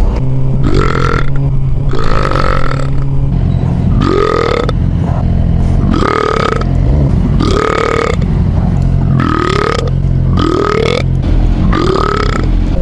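A man belching repeatedly: about eight burps in a row, roughly a second and a half apart, each rising in pitch.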